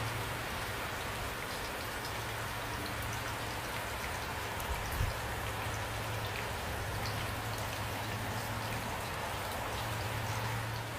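Steady rain falling, with scattered individual drops ticking through the patter and a low steady hum beneath; one brief low thump about five seconds in.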